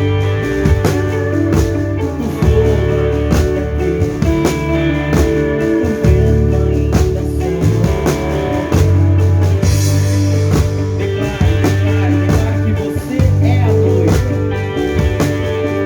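Live band music with drum kit, bass and guitar playing a rock-style passage, drums keeping a steady beat and a cymbal wash about ten seconds in.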